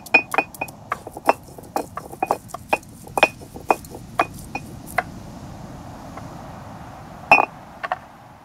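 Kitchen knife chopping garlic cloves on a wooden cutting board: quick strikes about three a second, each with a short metallic ring, stopping about five seconds in. A rough scraping follows for about two seconds, then a single louder knock near the end.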